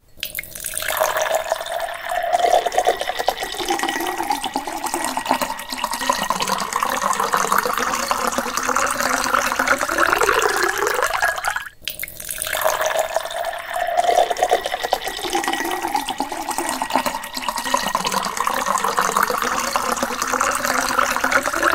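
Tap water running and splashing into a metal basin as hands rinse and rub a fish. The sound is a steady hiss that breaks off for a moment about halfway through.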